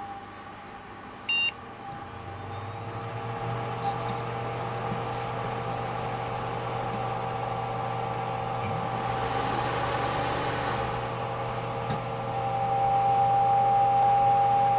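Desktop computer powering up: a short beep about a second in, then a steady hum of cooling fans and drive that grows louder near the end.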